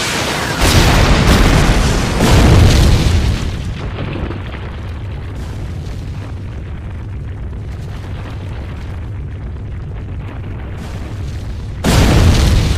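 Cartoon explosion sound effect: a sudden loud blast swelling over about three seconds, settling into a steady rumble as rubble falls, then a second blast near the end.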